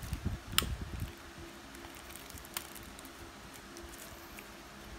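Handling noise from gloved hands positioning a cartridge tattoo machine on paper: a few soft knocks and a sharp click in the first second, then only a faint steady hum.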